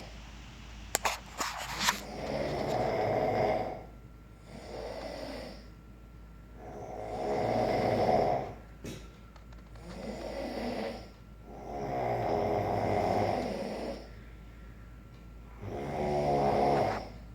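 A person snoring heavily in a slow, regular rhythm: a long loud snore every four to five seconds, with a shorter, softer breath sound between. A few sharp clicks come about a second in.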